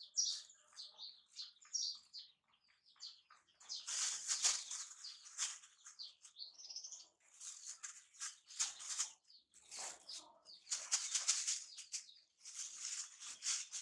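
Plastic bag crinkling and rustling in irregular bursts, with short high chirps in the first couple of seconds.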